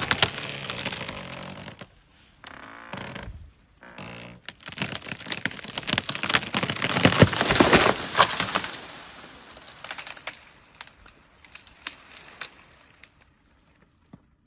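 A tree's wood creaking and cracking as an elephant pushes it over, then a dense run of snapping and crackling branches as it breaks and falls, loudest in the middle and dying away near the end.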